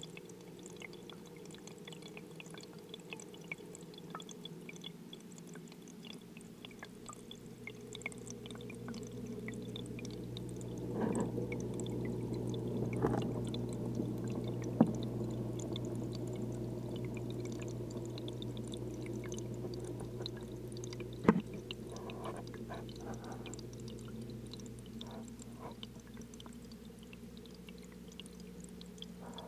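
Aquarium water circulating with a steady low hum from the tank's filter, heard from inside the tank. It gets louder through the middle, where there are a few sharp knocks, sharpest about 15 and 21 seconds in.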